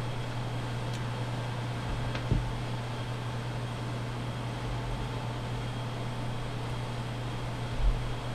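Steady low mechanical hum of workshop background noise, with a faint click or two and two soft knocks, about two seconds in and near the end, as metal parts of a hydraulic cylinder are handled on a wooden bench.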